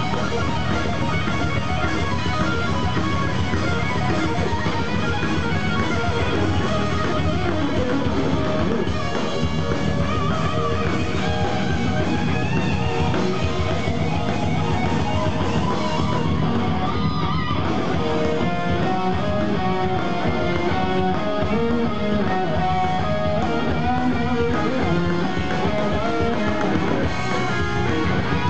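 Heavy metal band playing live: electric guitars, bass guitar and drums in a loud, dense, unbroken passage.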